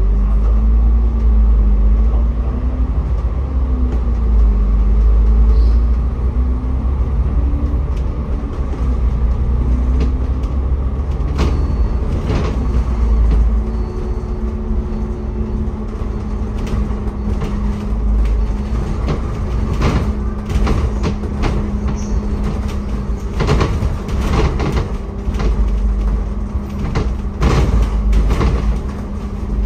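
Cabin noise aboard a moving public-transport vehicle: a low rumble with a motor tone that rises and falls in the first half, then holds steady, and a run of sharp rattling knocks through the second half.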